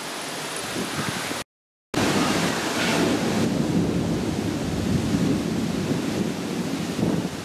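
A steady windy hiss at first, then a short dropout in the sound about a second and a half in. After it, thunder from a passing thunderstorm rolls and rumbles for about five seconds, easing off near the end.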